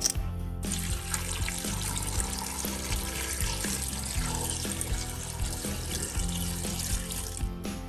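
A stream of water pouring into a pot of cubed raw cassava (tapioca), splashing over the pieces, with background music underneath. The pouring starts about half a second in and stops near the end.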